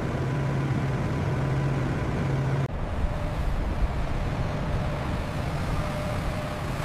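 Steady mechanical rumble with a low hum that changes abruptly about two and a half seconds in to a similar rumble with a faint higher tone.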